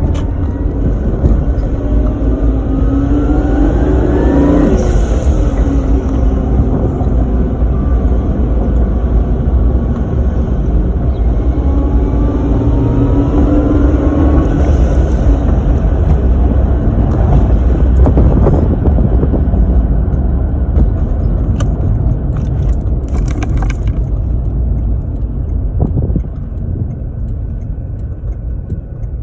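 Supercharged Lexus 2JZ-GE inline-six running under load, with a Powerdyne supercharger whine rising in pitch twice as it accelerates. An HKS SSQV sequential blow-off valve, fitted with its Option Fin insert, vents with a sharp hiss at each lift-off, about three times.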